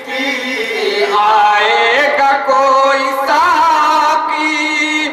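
Men's voices singing a devotional Islamic naat together into a microphone, in long drawn-out notes that slide from pitch to pitch.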